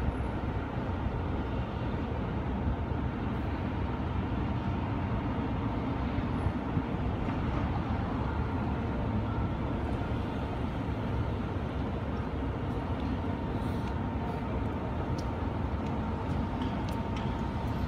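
Steady rumble of city street traffic, with a faint steady high hum running through it.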